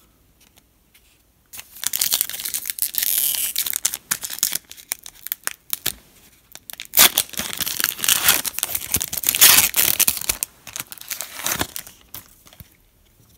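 Foil trading-card pack wrapper being torn open and crinkled by hand: a short quiet, then spells of dense crackling and ripping with a brief lull between, the second spell louder.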